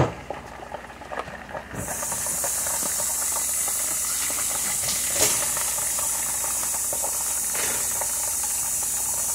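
Battered chicken pieces deep-frying in hot oil, with scattered crackles. About two seconds in, a loud, steady high hiss comes in and stays.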